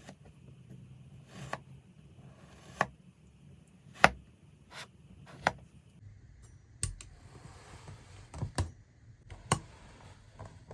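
Kinetic sand being chopped and cut with a utensil: a series of sharp taps and chops at an uneven pace, about one a second, with soft crumbly scraping between them.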